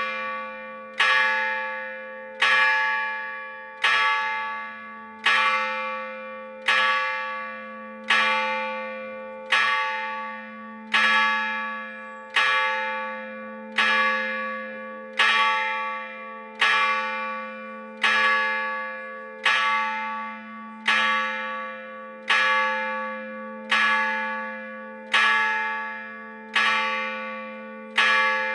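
A single large bronze church bell, bell I of a four-bell Gescher-cast peal, struck by its hammer while hanging still, not swung. About one stroke every 1.4 seconds, each ringing out and fading under the next, over a low hum tone that never dies away.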